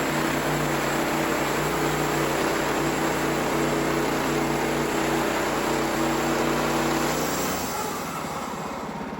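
Gas engine of a sawmill running steadily under load as it cuts a slab from a red cedar log. It winds down about seven and a half seconds in, as the cut finishes.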